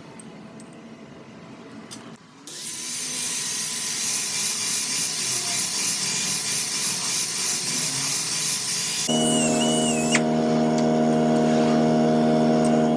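A power tool working metal: after a quieter start with a few clicks, a loud harsh hissing noise starts about two seconds in, and a steady humming motor tone joins it in the last few seconds.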